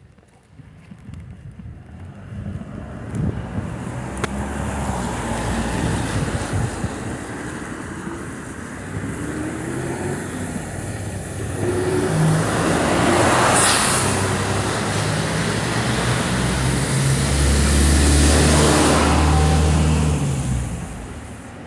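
Road traffic passing on a rain-wet street: a city bus engine and tyres hissing on the wet road, building up and loudest in the second half, with the deepest engine rumble near the end as the bus goes by.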